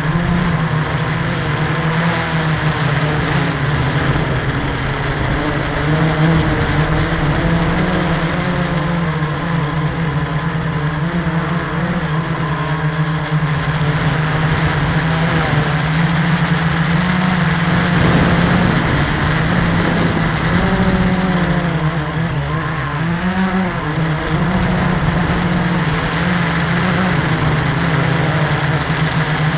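Blade 350 QX quadcopter's four electric motors and propellers buzzing steadily in flight, heard close up from a camera mounted on the drone itself. The pitch wavers up and down as the motors change speed to steer.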